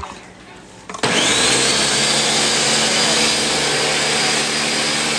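Countertop blender switched on about a second in, its motor whining up to a steady high speed as it blends a sauce.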